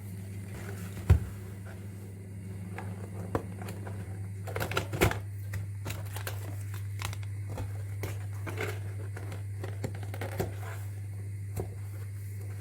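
Light handling noises: crinkling of packaging and scattered small clicks and taps, over a steady low hum. The sharpest click comes about a second in, with a cluster of crinkles around five seconds in.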